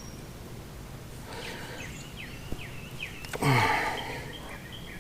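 Birds chirping in the background, a string of short falling calls repeating every fraction of a second. About three and a half seconds in come a couple of sharp clicks, then a brief, louder breath-like sound that falls in pitch.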